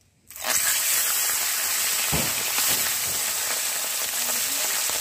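Catla fish heads going into hot mustard oil in a kadai: a sudden loud sizzle breaks out about a third of a second in and carries on as steady, hissing frying. A short knock sounds about two seconds in.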